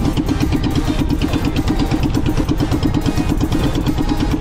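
Outrigger fishing boat's engine running with a fast, even pulse, with wind rumbling on the microphone.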